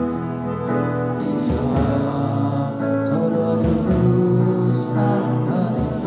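Live worship band playing a slow song: acoustic guitar, keyboard and drum kit under singing. A cymbal crashes about a second and a half in and again near the end.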